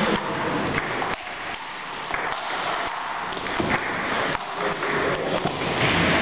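Table tennis rally: a celluloid-type ping-pong ball clicking off rubber-faced paddles and bouncing on the table, sharp irregular clicks over a steady background noise of the hall.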